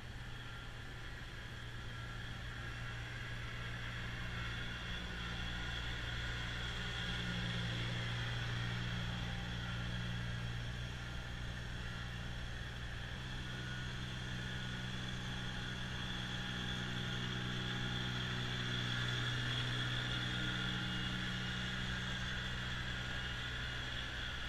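Kubota BX2660 compact tractor's three-cylinder diesel running steadily while its front-mounted snowblower throws snow: a low engine hum with a hiss above it, swelling a little twice as the tractor passes closer.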